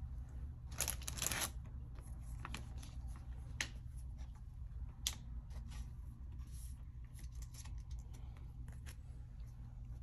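Faint rustling and light taps of Pokémon trading cards and foil booster packs being handled, with a louder rustle about a second in, over a low steady hum.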